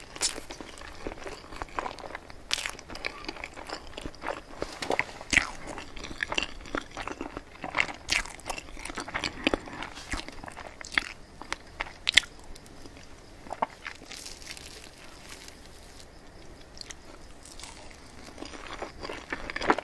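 Close-miked chewing of soft layered crepe cake, with frequent sharp, irregular wet clicks and smacks of the mouth, quieter for a few seconds late on.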